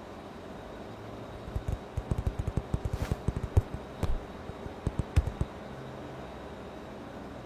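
Animation sound effects: a quick run of soft, low thumps and taps, closest together in the middle, over a faint steady hiss.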